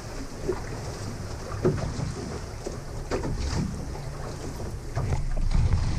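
Wind buffeting the microphone over the rumble of a fishing boat on the sea, with scattered short knocks; it gets louder near the end.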